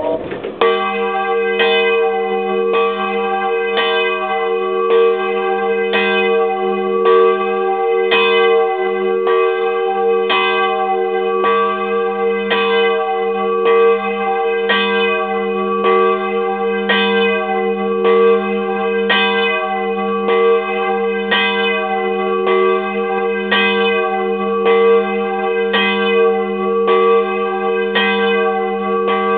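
Bronze church bell cast in 1507 by Thomas Hartl, swinging and ringing alone at close range in its belfry. The clapper strikes in a steady rhythm, about three strokes every two seconds, starting about half a second in, over a continuous ringing hum.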